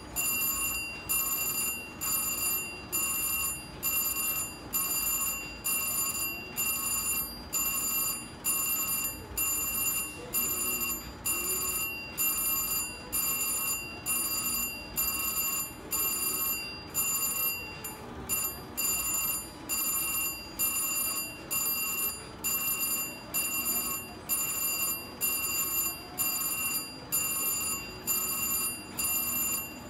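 VGT slot machine's electronic reel-spin sound: a high, bell-like ringing beep that pulses in an even rhythm about once a second as the reels spin.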